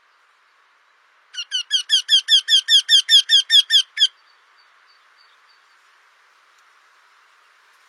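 Eurasian wryneck singing: one rapid series of about sixteen ringing, slightly falling notes, about six a second, swelling at the start and lasting nearly three seconds before stopping abruptly.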